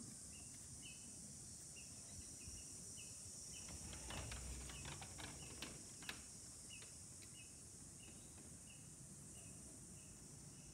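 Faint ambience of chirping insects: a steady high hiss with a short, even chirp repeating about twice a second. A few clicks come around the middle.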